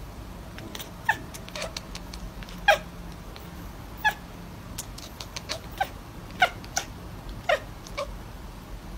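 Domestic cat giving a string of about a dozen short, high, chirp-like meows at irregular intervals, a few of them louder than the rest.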